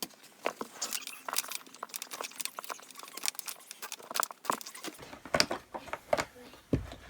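Irregular clicks, taps and rustling as a vacuum cleaner's power cable is wound by hand onto the cord hooks on its plastic body.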